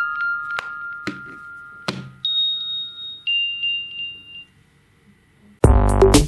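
Huawei smartphone alarm tones: a chime melody of struck bell-like notes that ring and fade, then a second of quiet, then a loud electronic alarm tune with a drum-machine beat starting near the end.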